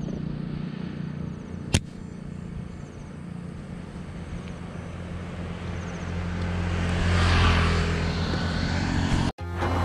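Vehicle engine running steadily with road noise, a single sharp click about two seconds in, and a swell of vehicle noise that builds and fades around seven to eight seconds in. The sound drops out for an instant near the end.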